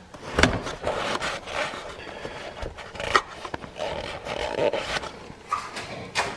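A rag wiped around inside an ATV engine's open oil filter housing: irregular rubbing and scraping, with a few light knocks.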